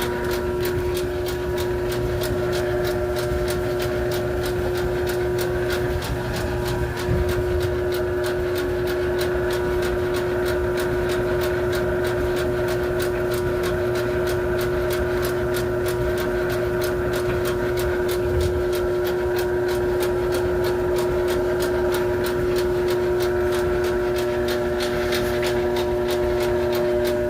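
A machine running steadily: a constant hum made of several steady tones, with a regular light ticking about three times a second.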